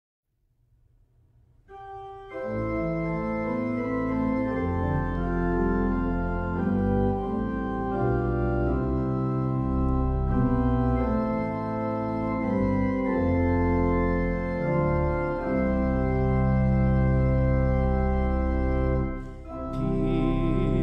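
Organ playing a slow hymn in sustained, held chords, coming in softly over the first two seconds.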